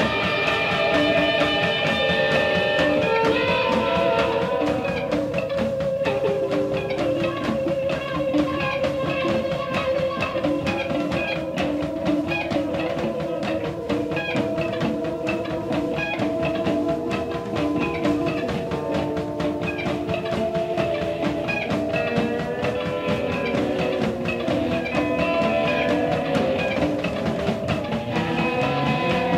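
Live psychedelic rock band playing an instrumental passage: electric guitars and bass with held, wavering notes at a steady level.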